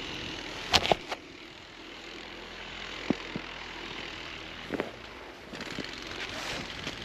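A vehicle running steadily while it tows a sled through snow. Sharp knocks break in, the loudest cluster about a second in and smaller ones around three and five seconds.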